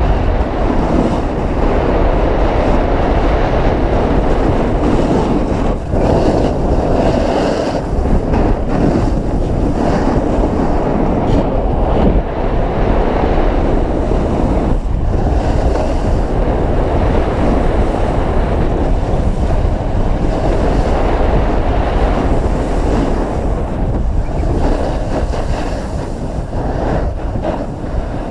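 Wind buffeting the microphone and skis scraping over packed snow during a fast downhill ski run, a steady heavy rumble that eases slightly near the end as the skier slows.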